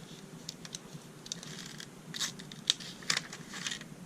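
Paper rustling and scratching as the small blade of a multi-tool pocket knife is drawn through a sheet of paper to test its edge, with a few sharp clicks in the second half. The blade is not super sharp.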